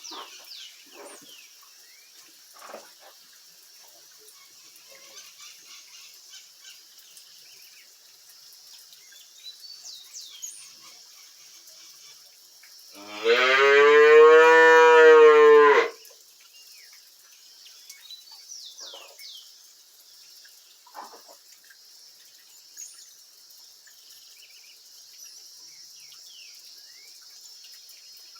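A dairy cow moos once, a single loud drawn-out call of about three seconds, around the middle. Before and after it there are only faint scattered chirps and a steady high hiss.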